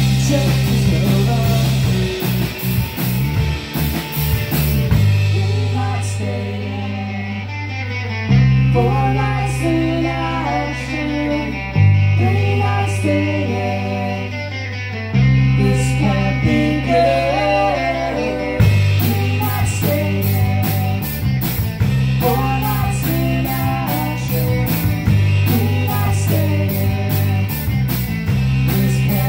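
Live rock band playing: electric guitars and bass over a drum kit. The low notes are held for several seconds each and move in blocks, under a shifting guitar line and steady cymbal hits.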